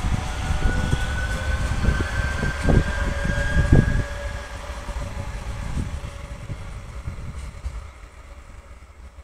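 Renfe Series 447 electric commuter train pulling away from a station. Its traction motors give a whine that rises slowly in pitch as it accelerates, over a low rumble. The sound is loud for about four seconds, then fades as the train draws away, with strong wind buffeting the microphone.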